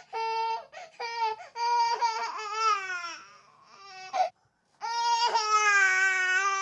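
A young child crying in long, high wails, several in a row with short breaths between them. There is a lull about three seconds in, then another long wail.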